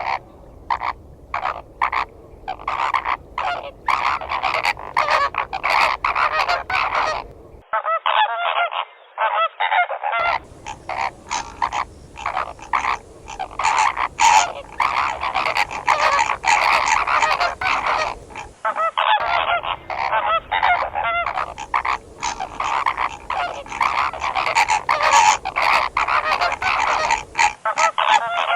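A flock of flamingos calling: many rapid, overlapping honks. The recording switches abruptly to other takes of the flock a few times.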